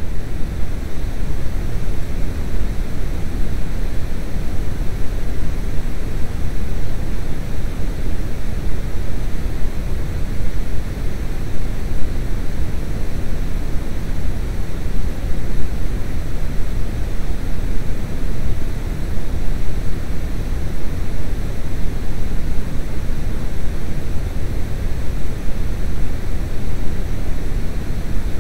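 Steady, loud rushing noise, heaviest in the low end, with no distinct events or tones.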